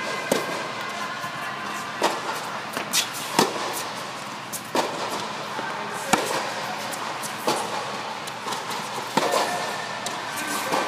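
Tennis ball struck by rackets and bouncing on a hard court during a rally, a sharp hit or bounce every second or so.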